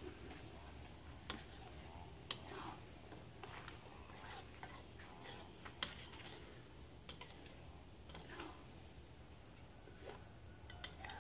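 Faint scrapes and light clicks of a metal spatula stirring coconut cream in a wok, over a steady high drone of insects.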